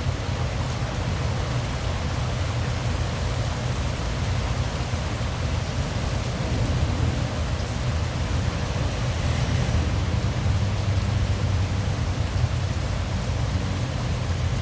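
Steady rain falling: an even hiss with a continuous low rumble underneath.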